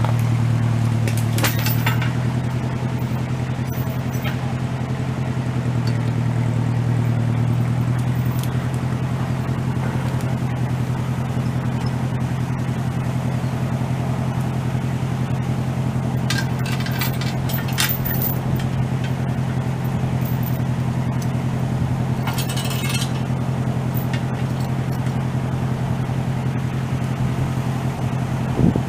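An engine running steadily at one even speed, with a few brief light rattles about a second and a half in, around the middle, and again a few seconds later.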